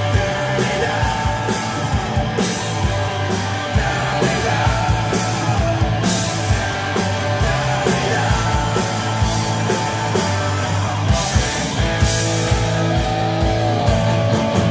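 Live rock band playing loudly: electric guitars, bass guitar and a drum kit, with steady drum hits driving the song.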